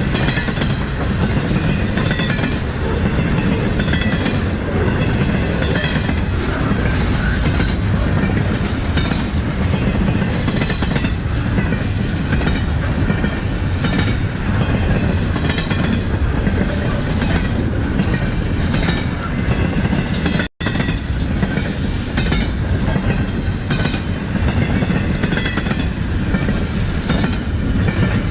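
Intermodal freight train's cars rolling past: a steady, loud rumble of steel wheels on rail, with clatter over the rail joints and short high squeals from the wheels.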